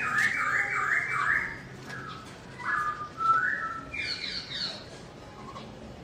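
Black-throated laughingthrush singing: loud whistled phrases of quick up-and-down notes, then shorter phrases and a higher, faster run about four seconds in.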